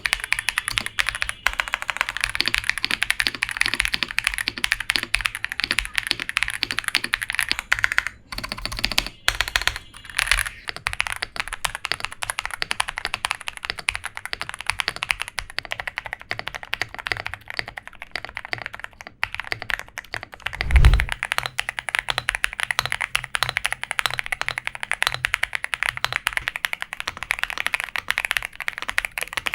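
Fast, continuous typing on gasket-mounted budget mechanical keyboards with polycarbonate plates and linear switches, a dense stream of keystroke clacks. One heavier thump comes about two-thirds of the way through.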